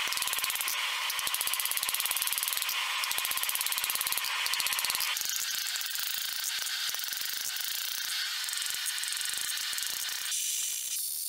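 Hand hammer striking a red-hot steel blade on an anvil in a rapid, even run of blows, the anvil ringing between strikes. The strikes change in tone about five seconds in and again near the end.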